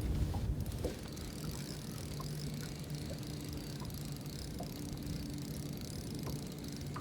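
Boat motor humming steadily at a low pitch, with a low bump in the first half second and a few faint ticks.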